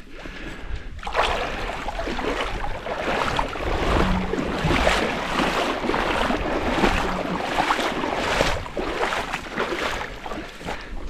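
Lake water splashing and sloshing in uneven surges, starting about a second in.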